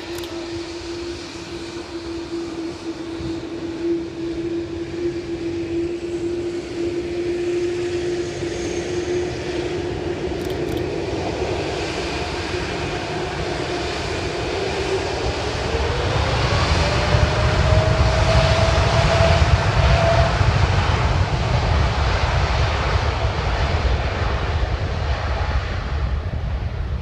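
Boeing 787-8 Dreamliner's twin General Electric GEnx-1B turbofans holding a steady whine, then spooling up about halfway through with a rising whine as takeoff thrust is set. A deep jet rumble swells with it and carries on as the airliner accelerates down the runway.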